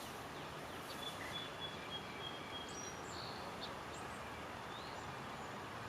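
Steady outdoor background noise with a few faint, high bird chirps and one thin, held high call in the first half.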